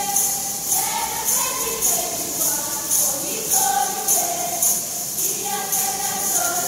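A group of timbrels (tambourines) struck in unison, jingling in a steady beat of about two strokes a second, with voices singing a melody along with them.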